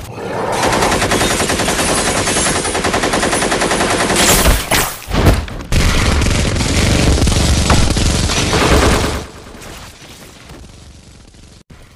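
Rapid automatic gunfire sound effect, a long continuous rattle of shots interrupted about four to five seconds in by a few louder blasts, then resuming. It stops about nine seconds in, leaving a much quieter background.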